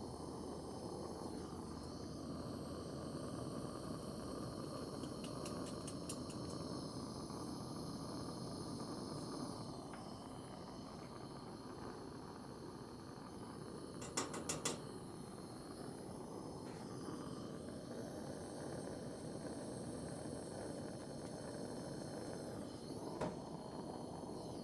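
Handheld propane torch flame hissing steadily as it heats the tin and solder for a patch. A quick cluster of sharp clicks comes about halfway through, and one more click near the end.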